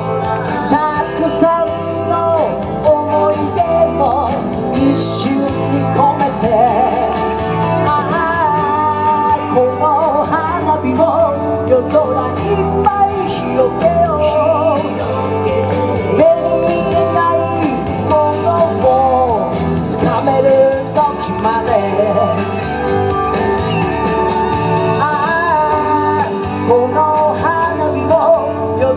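Upbeat pop song performed live on an amplified stage: singing over guitar and a steady bass beat.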